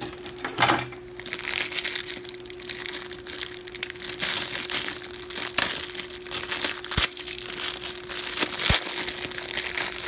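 Clear plastic packaging crinkling and crackling as it is handled and pulled at to get it off, with a couple of sharp clicks around seven and nine seconds in.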